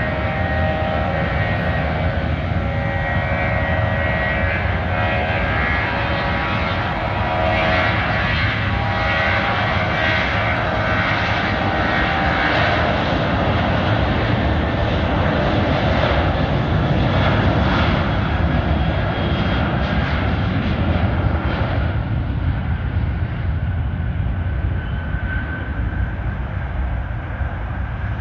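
Boeing 737-800's twin CFM56-7B turbofans at takeoff power through the takeoff roll: a loud, steady jet noise with whining tones on top. The whine fades out after about twenty seconds and the noise eases slightly as the jet draws away and lifts off.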